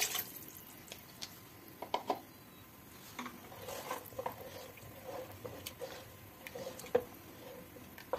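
A wooden spoon stirring a thin herb stew in a metal pot: liquid sloshing with scattered knocks and scrapes of the spoon against the pot. It opens with the last of a pour of water splashing into the stew.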